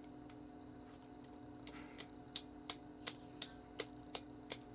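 A Rubik's cube being turned by hand. Its layers click about three times a second from near the middle on, in a fairly even rhythm.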